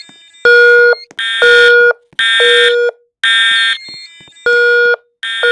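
Building fire alarm horns sounding the evacuation signal in loud, repeated half-second blasts, about one a second, with a slightly longer break partway through.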